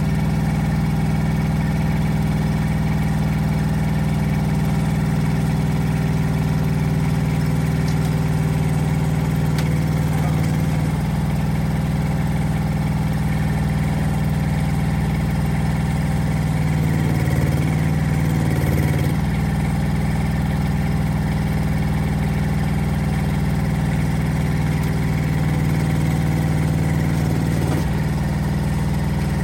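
Rippa R10 Eco mini excavator's engine running steadily, its note shifting briefly about two-thirds of the way through as the machine works its hydraulics.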